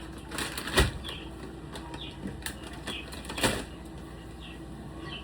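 Kitchen handling sounds: two sharp knocks, about a second in and again at about three and a half seconds, among lighter clicks and short, high chirping squeaks.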